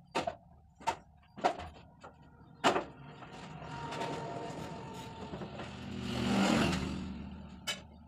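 Marker strokes on paper: several short, sharp scratches in the first three seconds and one more near the end. In between, a louder rush of noise swells up, peaks about six and a half seconds in and fades away.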